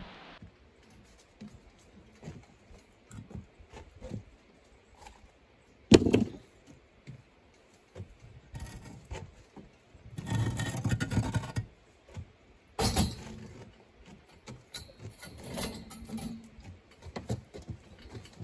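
Hollow concrete blocks being handled and set on a block wall: a loud knock about six seconds in, a gritty scrape lasting over a second around ten seconds in, and another knock near thirteen seconds, with small clicks and taps in between.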